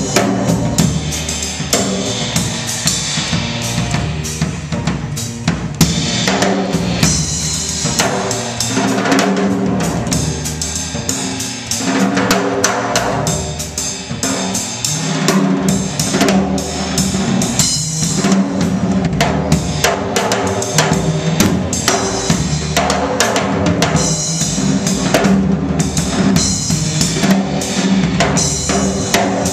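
Live jazz quartet playing, with the drum kit most prominent: busy snare, bass drum and rimshots over electric bass and keyboard.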